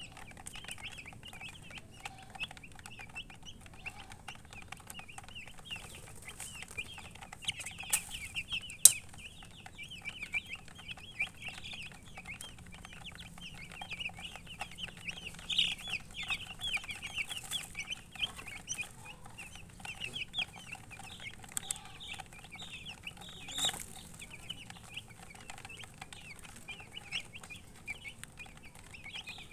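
A flock of baby chicks peeping continuously, many short high cheeps overlapping, with a few sharp clicks, the loudest about nine seconds in.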